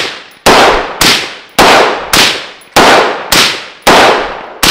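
Short-barreled bullpup rifle fired unsuppressed: eight loud shots at a steady pace of about two a second, each trailing off in echo before the next.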